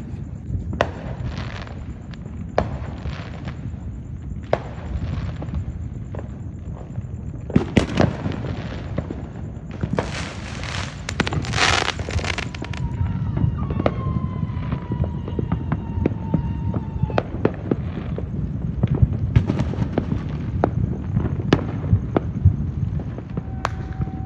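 Fireworks going off all around: a continuous low rumble of many distant bangs, with sharper, nearer pops and cracks scattered throughout. About ten seconds in, a loud hissing burst lasts a couple of seconds, followed by a tone that slowly falls in pitch.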